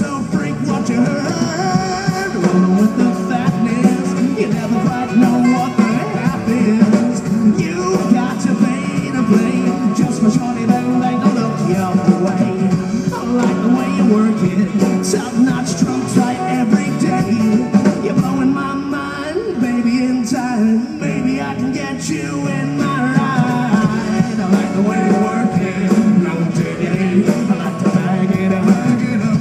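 Live band playing amplified rock-pop music through a PA, with drums and guitar over a steady beat.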